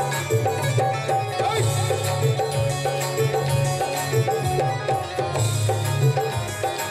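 Instrumental interlude of a Marathi folk-style devotional song: hand drums keeping a steady rhythm under a melodic instrument playing a tune of short, repeated notes.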